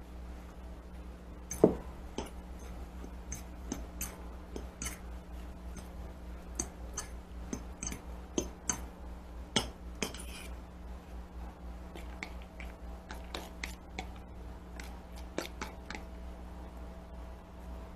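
Metal fork clinking and scraping against bowls as grated carrot and squash are scraped out of a plastic bowl into beaten egg and stirred: light irregular clicks, the loudest about a second and a half in.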